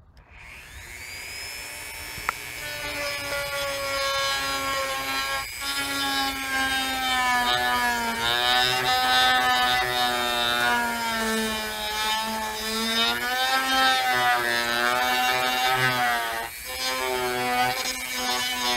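Dremel rotary tool with a grinding-stone bit spinning up and grinding into the plastic steering column cover to enlarge a hole. Its high whine builds over the first few seconds, then wavers in pitch as the bit bears on the plastic, dipping briefly twice.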